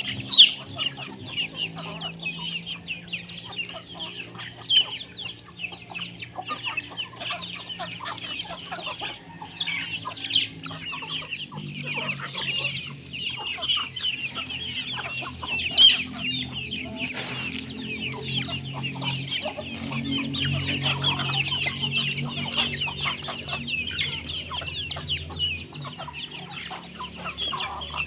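A flock of free-range native chickens clucking and calling, with many short high calls overlapping continuously and a few louder single calls standing out.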